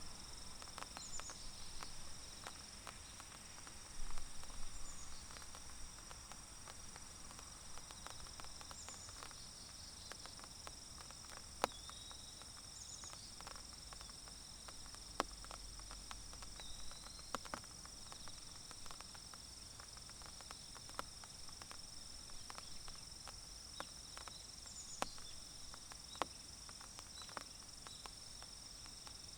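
Steady high trilling of insects, with scattered sharp ticks of light raindrops dripping onto leaves and the ground, a few louder than the rest. Short high calls sound every few seconds.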